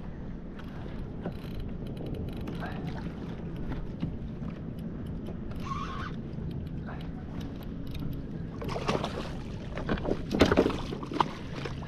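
Kayak on the water: a steady low water noise with small scattered clicks and knocks, which get louder and busier near the end.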